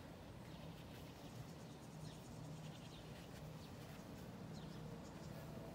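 Faint rustling of foam pre-wrap being pulled off the roll and wound around a knee, with short high scratchy squeaks now and then.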